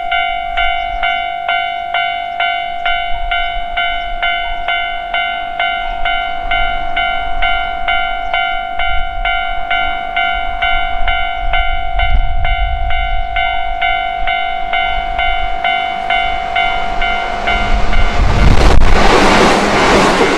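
A railway warning bell rings in a steady rhythm of just over two strokes a second over a held tone while a train approaches. It stops about 18 seconds in as a Keihan 8000 series electric train runs past close by, with a loud rush of wheels on rails.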